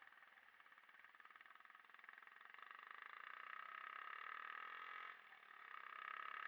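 Faint motorcycle engine running with a fast, even pulse. It grows louder, drops away briefly about five seconds in, then picks up again.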